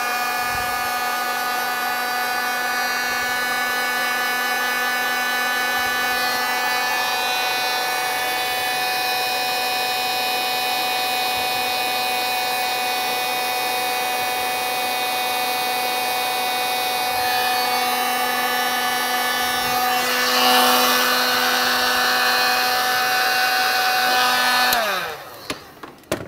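Electric heat gun running steadily, its fan motor giving a constant hum over a rush of air while it shrinks heat-shrink tubing onto crimped butt connectors. The air rush swells briefly about twenty seconds in. The gun is switched off about a second before the end, and its pitch falls as it winds down.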